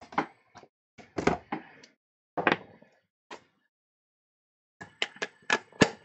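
Craft supplies being handled on a cutting mat: scattered light knocks and clicks, then a quick cluster of sharp plastic clicks near the end as a plastic ink pad is handled.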